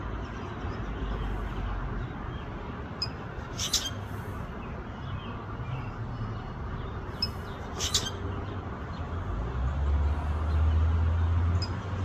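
Short, sharp bird chirps every few seconds over steady outdoor background noise. A low traffic rumble swells near the end.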